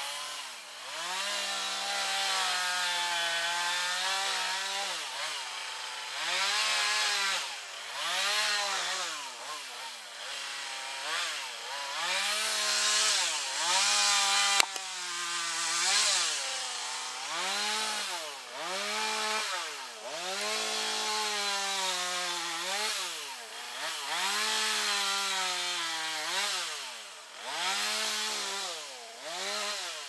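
Two-stroke chainsaw running at high speed, its pitch rising and falling about once a second and held up for a few seconds at a time, as the throttle is worked in a cut. A single sharp click about halfway through.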